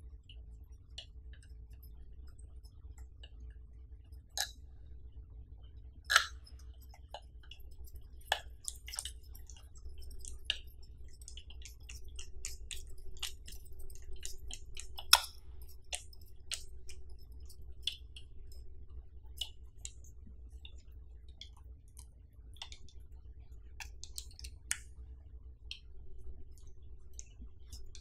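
Hands handling and adjusting a tripod's center column, ball head and pan handle: scattered small clicks and taps, with a few louder sharp knocks, over a steady low hum.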